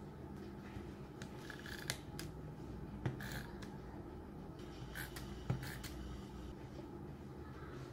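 Paper handled on a desk: short paper rustles and a few light, sharp clicks and taps as sheets, a photo and peeled backing pieces are moved about.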